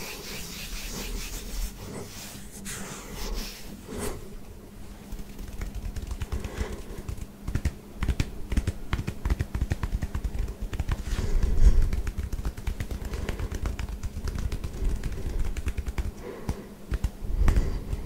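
Fingertips scratching and rubbing over short buzz-cut hair close to the microphone: a dense, crackly run of quick scratchy ticks that thickens about a third of the way in and is loudest near the middle.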